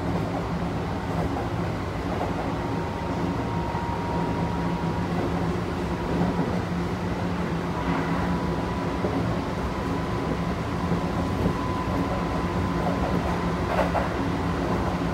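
Kintetsu 1233-series electric train running at speed, heard inside the passenger car: a steady rumble of wheels on rail with a thin whine from the VVVF inverter held at one pitch. Two light knocks come through, about halfway and near the end.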